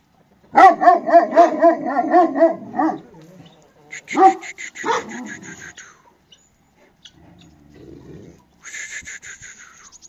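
A dog barking in a quick run of high yipping barks for about two seconds, then two more single barks a moment later.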